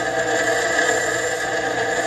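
Bench grinder running with a small steel part held against its wheel: steady, unbroken metal grinding.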